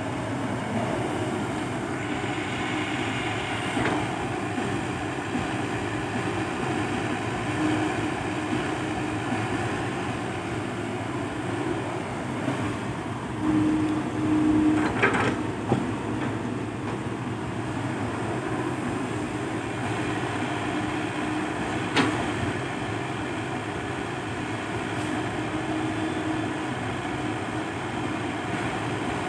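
Komatsu PC120-5 hydraulic excavator running as it digs and loads soil into a dump truck: a steady diesel rumble with a tone that comes and goes as the hydraulics work, louder for a couple of seconds mid-way, and two sharp knocks, about fifteen and twenty-two seconds in.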